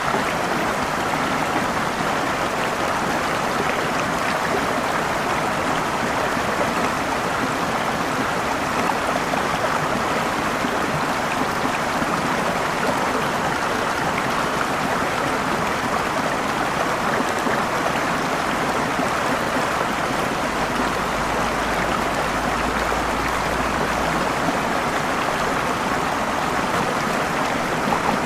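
Running water rushing steadily, an even, unbroken wash of sound.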